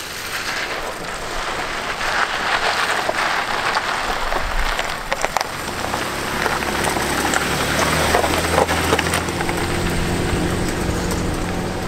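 A Jeep Wrangler driving past on a gritty, gravel-strewn road: its large off-road tyres crunch and crackle over loose grit, and the low steady hum of its 3.8-litre V6 comes in about halfway through as it passes close and pulls away.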